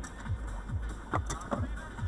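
Electronic dance music with a steady thumping kick-drum beat, about two to three beats a second, over a low steady hum.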